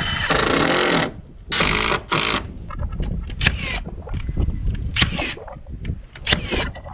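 A cordless drill driving screws into framing lumber in three bursts, one long and two short. Then a battery-powered nailer fires several sharp shots into the wood, some followed by a short falling whine.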